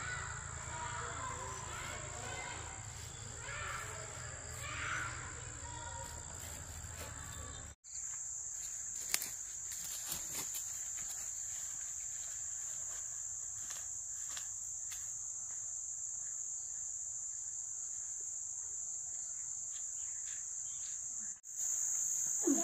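Steady high-pitched chorus of insects at dusk, with a few light clicks about nine to ten seconds in.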